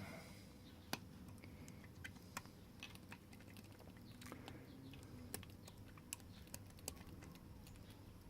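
Faint, irregular clicks and light scraping as a lock pick works the pin tumblers of a padlock under a tension wrench, some clicks sharper than others.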